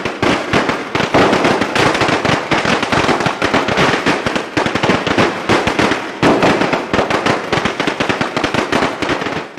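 A long string of firecrackers going off in a rapid, unbroken crackle of bangs, breaking off abruptly at the end.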